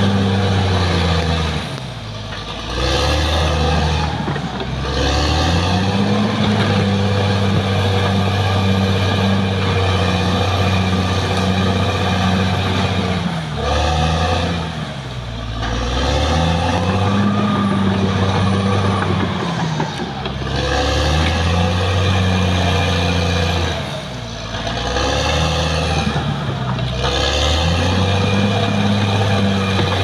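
Caterpillar D6R XL crawler bulldozer's diesel engine running hard. Its pitch sags and climbs back about four times as it works against a pile of logs and soil.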